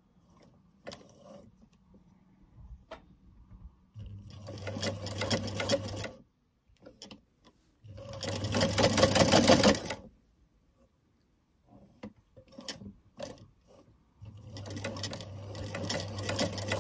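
Vintage Gamages sewing machine stitching in three short runs with a steady motor hum: about four seconds in, about eight seconds in (the loudest), and again from about fourteen seconds in. Scattered light clicks fall between the runs.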